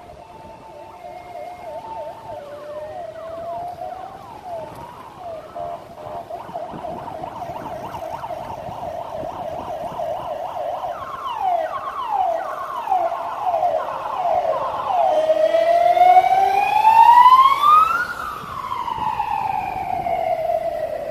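Emergency vehicle siren growing louder as it approaches, switching from a fast yelp of quick repeated sweeps to a slow wail that climbs to a high peak near the end and then falls away.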